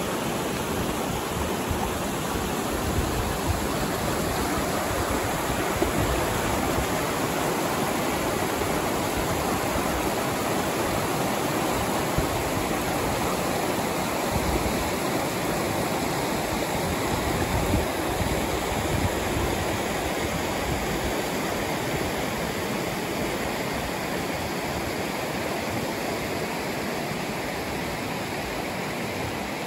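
River rapids: water rushing and churning over rocks in a steady, unbroken rush.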